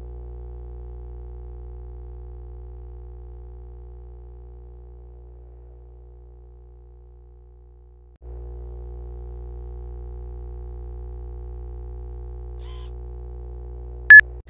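A steady low electronic drone of several held tones, slowly fading, cutting out about eight seconds in and starting again at full level. Near the end comes one short, very loud, high-pitched beep.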